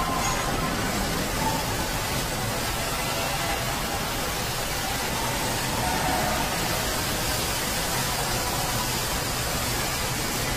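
Steady, even noise of a robotic car-body assembly line, a hiss spread across all pitches with faint tones coming and going in the middle.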